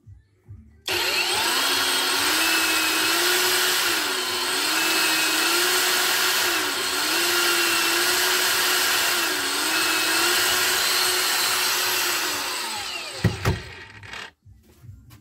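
Cordless 20 V brushless angle grinder starting about a second in and running with no load, a steady high whine whose pitch dips briefly three times. It is then switched off and spins down, followed by a knock near the end.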